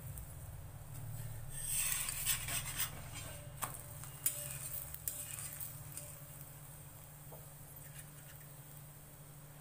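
A steel spoon clinking and scraping against a tava as ghee is spread over a roasting puran poli, with a short sizzle of the ghee about two seconds in. A few separate sharp clinks follow, over a low steady hum.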